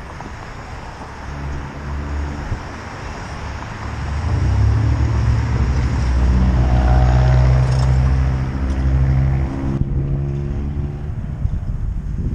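A car passing close by, its engine's low hum building to loudest about halfway through and then fading, over wind rushing across the microphone of a moving bicycle's camera.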